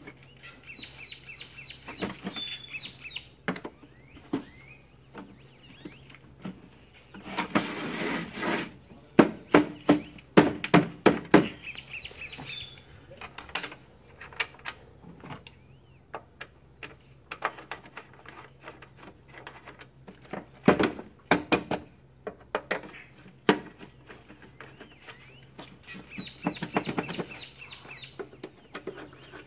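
A cordless screwdriver runs briefly, among a string of clicks and knocks as screws and the lid of a Hypertherm Powermax 45 plasma cutter are fitted back together. Bird calls are heard near the start and again near the end.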